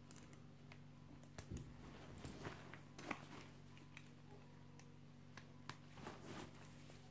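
Faint handling of a canvas tote bag: rustling of the fabric and scattered clicks from the metal strap hooks, the sharpest about three seconds in. A low steady hum underneath.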